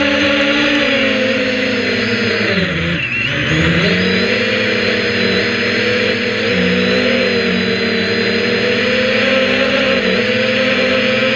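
Multirotor drone's electric motors and propellers, heard from a camera on the airframe: a loud, steady buzzing whine that drops sharply in pitch about three seconds in as the motors slow, then rises back to its earlier pitch and holds.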